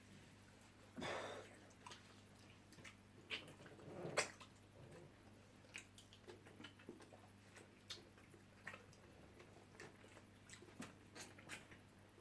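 Faint eating sounds from people chewing meat: scattered small clicks and mouth noises, with two louder noisy sounds about one and four seconds in, over a low steady hum.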